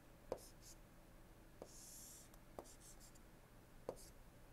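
Faint taps and light scratching of a stylus on a tablet screen while drawing: four soft taps with short scratchy strokes between them.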